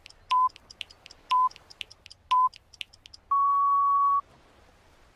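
Quiz countdown timer sound effect: quick clicking ticks with a short beep once a second, three times, then one longer beep lasting about a second that marks the end of the answer time.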